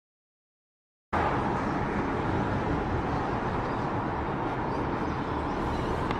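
Steady road and engine noise inside a moving Mazda car's cabin, starting suddenly about a second in after silence.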